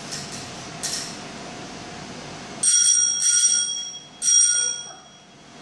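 Handlebar bell on a small child's bicycle rung twice: a longer ring starting about two and a half seconds in, then a shorter one near the end.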